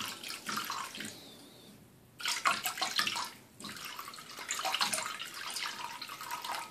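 Chicken stock poured from its container in a stream into a wok of sauce, splashing into the liquid. The flow tails off about a second in, picks up again strongly around two seconds, and falters briefly once more a little after three seconds.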